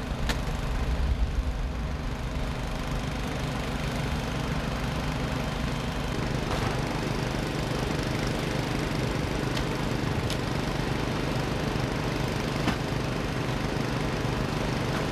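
A motor engine running steadily, a low even drone, with a few faint clicks over it.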